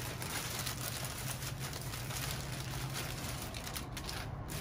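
Rustling and crinkling of shopping bags and wrapping as purchases are pulled out, a steady crackly rustle that briefly eases off near the end.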